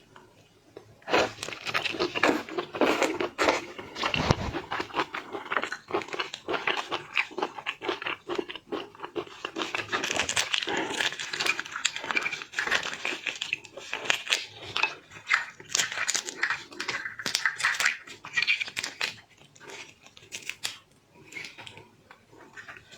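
Seafood shells being cracked and peeled by hand, a busy stream of crackling, crinkling and crunching, with chewing. It eases off briefly near the end.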